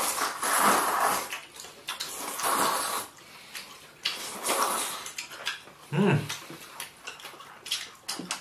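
Three long slurps of glass noodles and soup at the table, about two seconds apart, with light clinks of bowls and chopsticks, and a short hum of approval near the end.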